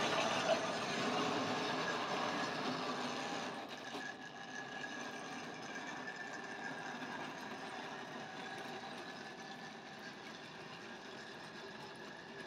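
Model train running: a small electric locomotive motor whirring and its wheels and wagons clattering along the rails. It drops in level about three and a half seconds in, then carries on steadily.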